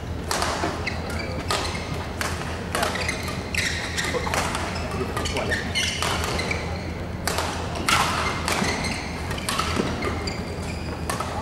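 Badminton rally: rackets striking the shuttlecock in a string of sharp hits every half second to a second, with the players' footwork on the court between them. A steady low hum runs underneath.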